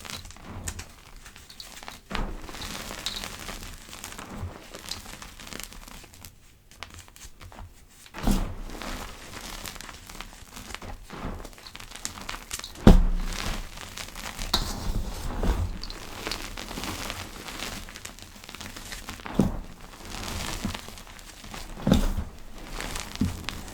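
Powder crushed and squeezed by hand: soft, irregular crackling and crunching, with a few louder dull thumps along the way.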